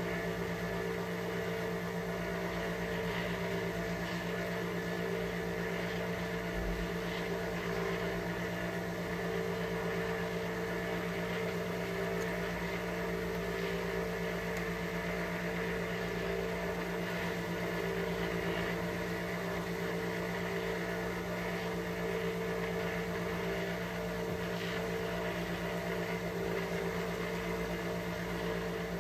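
A steady mechanical hum, like a small motor or fan running, with a few faint soft ticks from handling.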